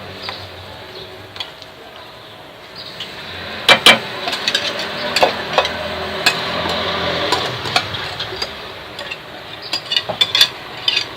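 Thick semolina harcha batter being scraped out of a bowl into a baking pan, with scraping and several sharp knocks of the utensil, the loudest two about four seconds in.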